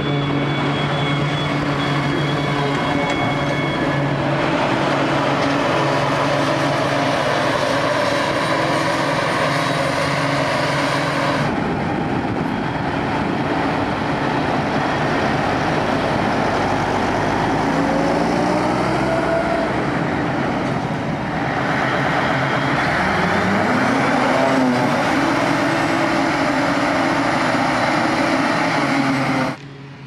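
Heavy farm machinery at work chopping grass silage: the diesel engines of a self-propelled forage harvester and a tractor with a tipping trailer running steadily under load. The sound changes abruptly about 11 seconds in and again near the end, and in the second half an engine's pitch rises and falls a few times.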